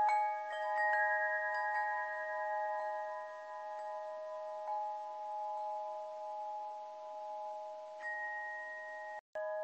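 Chimes ringing, with several clear tones overlapping and sustaining while fresh soft strikes come in irregularly every second or two. Near the end the sound cuts out completely for a moment, then the ringing starts again.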